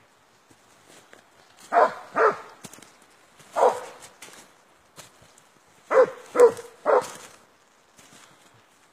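Barak hound barking: six short barks, two together, then one, then three close together.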